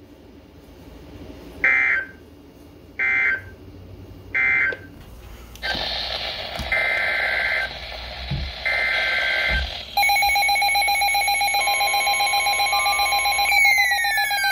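Emergency Alert System SAME header data bursts: three short two-pitch bleeps about a second and a half apart, then two more over a hiss of static. About ten seconds in, a loud, harsh, steady EAS attention tone starts, and falling pitch sweeps join it near the end.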